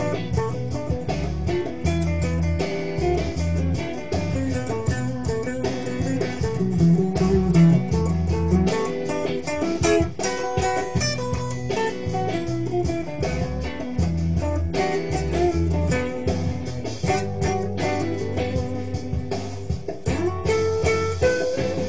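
An electric guitar being played: a continuous run of single notes and chords over low held notes.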